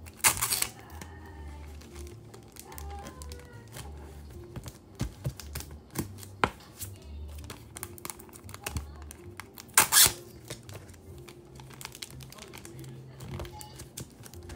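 Clear plastic sleeves crinkling and rustling as hands handle and seal them, with many small clicks and taps. There are two loud crackly rustles, about half a second in and about ten seconds in. Quiet background music with a steady bass line runs underneath.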